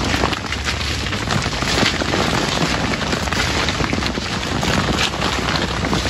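Coffee branches being stripped by hand: a dense crackle of rustling leaves, snapping twigs and coffee cherries pattering down.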